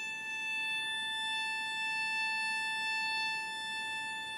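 A single long instrumental note held steady in pitch, part of slow music.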